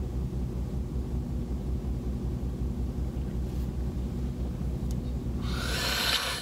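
Car engine idling, a steady low pulsing hum heard inside the cabin, with a loud breathy sigh near the end.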